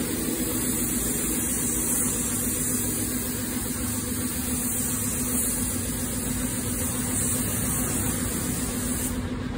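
Air-fed gravity spray gun hissing steadily as it sprays paint, with a steady low hum underneath. The hiss cuts off shortly before the end as the trigger is released.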